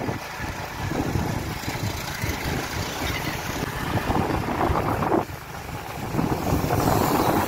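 Wind buffeting the microphone over the rumble of a vehicle moving along a road.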